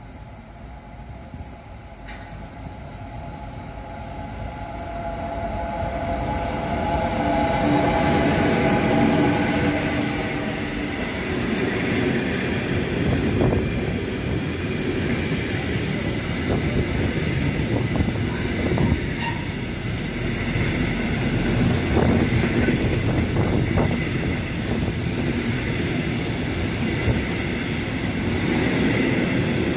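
An electric locomotive hauling an intermodal freight train of truck trailers on pocket wagons approaches and passes. It grows louder over the first several seconds, with a hum of several steady tones from the locomotive. Then the long line of wagons rolls past with a steady rumble and scattered knocks of wheels over the rails.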